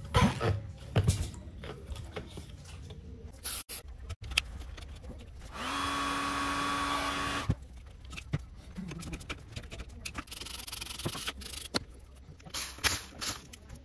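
A hand-held electric heat gun runs for about two seconds near the middle, a steady fan hum and hiss that cuts off suddenly. Around it come scattered clicks and knocks from the metal parts of a pressure washer's electric motor being handled and fitted.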